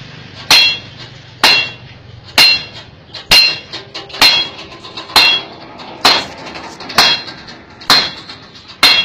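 Blacksmith's hammer striking a red-hot 12 mm steel rod on a steel block, forging its head. The blows come in a steady rhythm of about one a second, ten in all, each with a short metallic ring.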